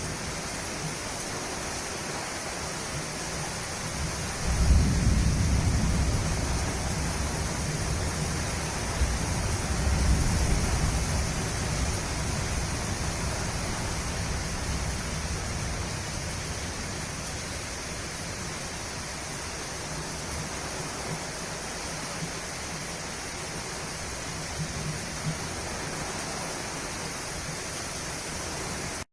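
Steady rain with distant thunder. A low rumble rolls in about four and a half seconds in, swells again around ten seconds, and dies away by about sixteen seconds, leaving the rain alone.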